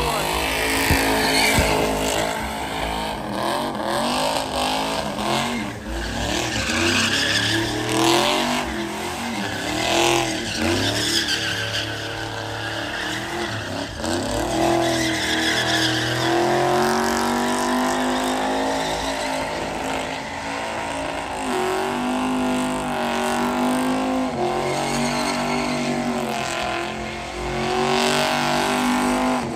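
Old pickup truck doing donuts and a burnout: its engine held at high revs that keep rising and falling, over the rear tyres squealing as they spin on the pavement.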